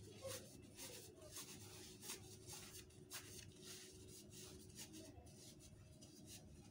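Faint rustling and scraping of cotton print fabric in the hands as a sewn belt tube is pushed through and turned right side out: a run of short, soft, irregular scratches.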